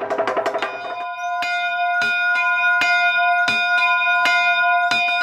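A wooden toaca (semantron) beaten rapidly with mallets, about eight knocks a second. About a second in, it gives way to a small church bell struck roughly every half second, its tone ringing on between strokes.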